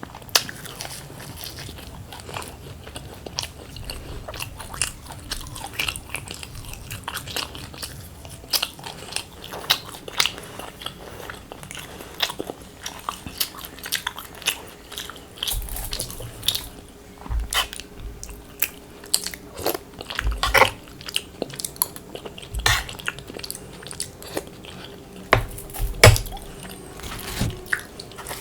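Close-miked chewing and biting of luchi and crispy fried potato, with many irregular crisp crunches and mouth clicks. A few dull low thumps come in the second half.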